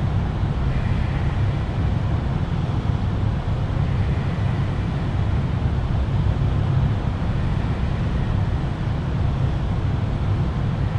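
Steady low rumble with no distinct events or changes.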